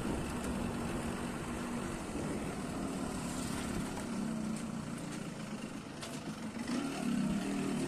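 A motorcycle engine idling, a steady low hum that dips a little partway through and comes back near the end.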